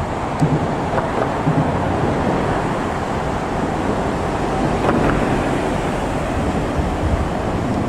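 Steady roadside traffic noise: vehicles passing with a continuous rush of tyres and engines, and wind buffeting the microphone.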